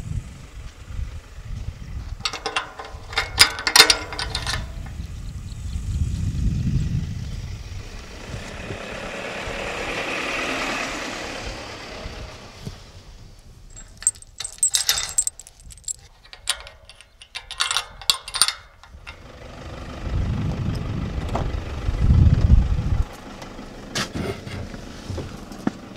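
Metal clinking and rattling in two short flurries as a wire farm gate is handled, with a low vehicle rumble between and a hiss that swells and fades around the middle.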